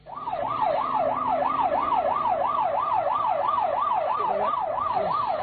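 Ambulance siren, its pitch sweeping rapidly up and down about three to four times a second in a fast wail. It starts suddenly.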